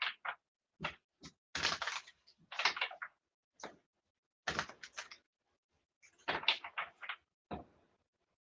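Tarot cards being handled and shuffled on a tabletop: a run of short, irregular rustles and taps with brief gaps between them.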